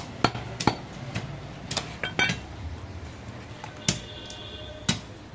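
Scattered sharp knocks and clinks of goat meat being cut and handled on a wooden chopping block and in a metal basin. One knock about four seconds in rings on briefly, like metal.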